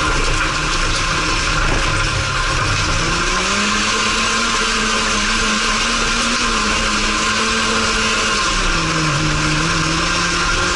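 Race car engine heard from inside the cabin, driven hard on a dirt track over a constant rush of noise; the revs climb about three seconds in, hold, drop near the end as the driver lifts, then begin to build again.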